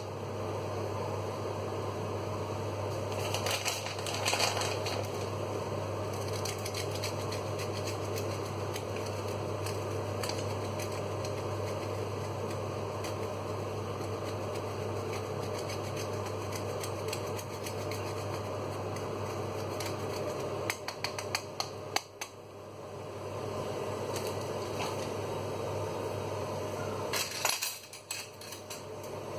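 Steady fan hum from a kitchen appliance, with bursts of scraping and sharp clicks from a handheld grater grating hard cheese over a bowl of spaghetti.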